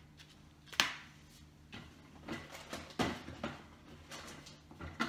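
Handling noise from unpacking: packaging rustling, with several sharp knocks and clicks, the loudest about a second in.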